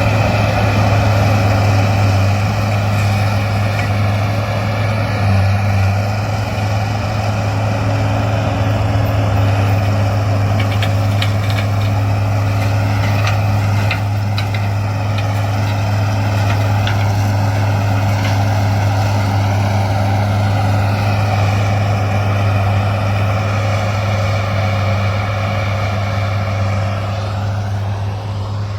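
John Deere 328D skid steer's diesel engine running steadily at high revs under load, with a scattered run of sharp cracks in the middle.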